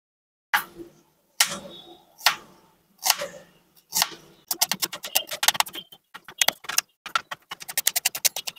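Kitchen knife cutting on a cutting board: a few single cuts about a second apart, then rapid, even chopping at about seven or eight strokes a second from about halfway through.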